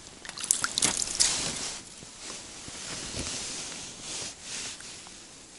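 A roach is pulled by hand out of an ice-fishing hole and handled. There is a burst of splashing and sharp rustling in the first second and a half, then softer rustling as the fish is held.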